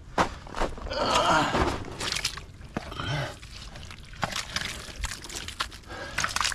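Sloshing and squelching in muddy standing water, broken by sharp knocks and scrapes as the wet ground is worked.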